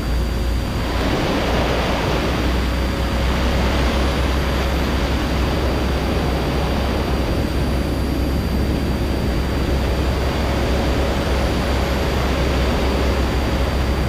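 Steady rush of wind over a wing-mounted microphone with the single-engine Cessna's engine throttled back to idle, as the plane glides in low and rolls onto a dirt strip, under a constant low hum.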